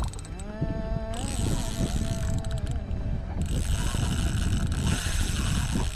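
Spinning reel working under the load of a big hooked garrick: a whirring mechanical tone that rises in pitch over the first second and then holds, with a higher buzzing over it from about a second in, typical of the drag giving line and the reel being wound.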